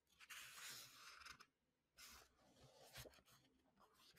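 Near silence with a few faint rustles of a paperback book being handled close to the microphone: a longer soft rustle in the first second and a half, then shorter ones around two and three seconds in.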